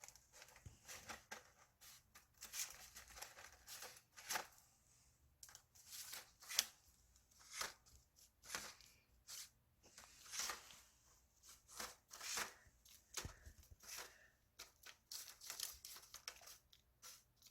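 Pet chipmunk handling and nibbling snacks: faint, irregular crinkling and crunching, a string of short crackly sounds a second or so apart.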